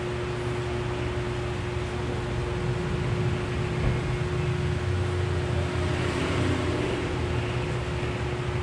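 Steady room noise: an even hiss with a low hum and one faint constant tone underneath, such as a small electric fan and the microphone's electrical hum make.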